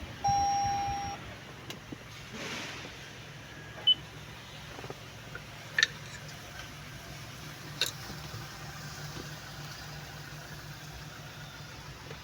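One steady electronic beep lasting about a second, then a steady low hum with a short high pip and a couple of sharp clicks.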